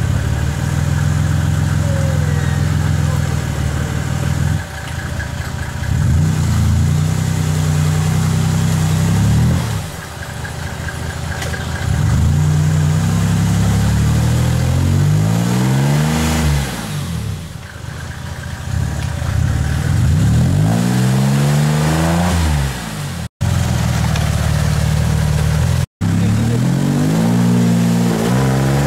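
Off-road buggy's engine revving up and down over and over as it works through deep mud, its pitch climbing and falling every few seconds. The sound cuts out for an instant twice near the end.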